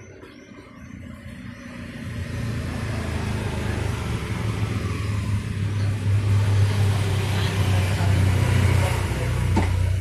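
A motor vehicle's engine drawing near: a low, steady engine hum with road noise that grows louder over the first few seconds and then holds. A short click sounds near the end.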